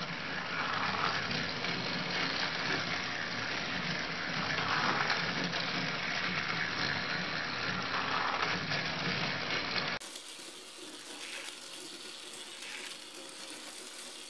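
Battery-powered Trackmaster toy train engines running on plastic track: a steady whirring of small motors and gearboxes with wheel clatter, swelling and fading as the engines pass. About ten seconds in, the sound abruptly turns quieter and thinner.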